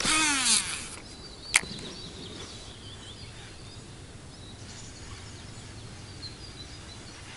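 Cast with a baitcasting reel: a whoosh of the rod and the spool's whir falling in pitch as the line pays out, then a single sharp click about a second and a half in. After that it is quiet, with faint birdsong.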